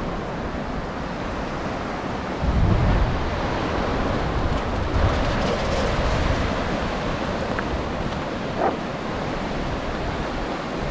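Surf breaking and washing up a beach, with wind buffeting the microphone in heavy gusts about two and a half and five seconds in.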